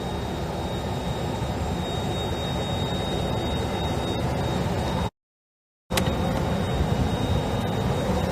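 Steady engine and air noise inside a private jet's cabin, with a faint steady high whine. It cuts out completely for under a second about five seconds in, then resumes.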